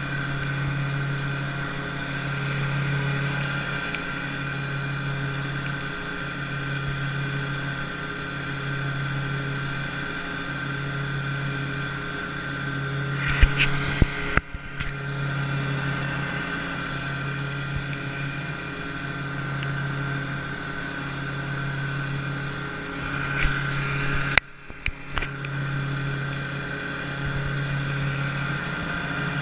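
Lawn mower engine running steadily, its hum swelling and fading slightly about every second and a half. A few sharp knocks and clunks come about halfway through and again a little before the end, the second group with a brief drop in the sound.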